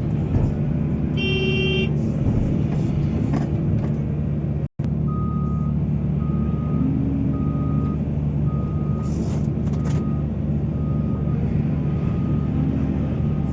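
Heavy diesel mining machinery running steadily, with a short horn toot about a second in. After a brief break in the sound, a reversing alarm beeps at an even pace, a little faster than once a second, for most of the rest.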